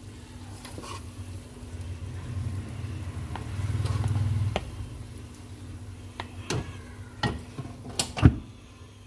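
A steel ladle scraping through thick halwa in a metal pot, with several sharp knocks of the ladle against the pot in the second half, the loudest near the end. A low steady hum runs underneath.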